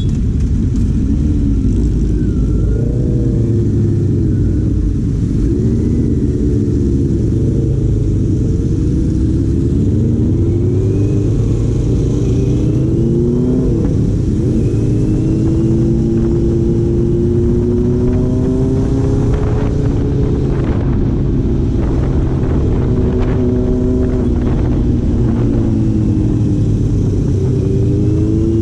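Four-cylinder vehicle engine driving under way, its pitch rising and dropping again and again as it accelerates and changes gear, then holding steadier with slow rises in the second half.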